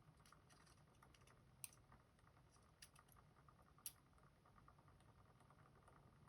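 Near silence with a few faint, sharp little clicks, three of them spaced about a second apart: tweezers ticking against the tiny sidebar springs and metal parts of a lock being taken apart.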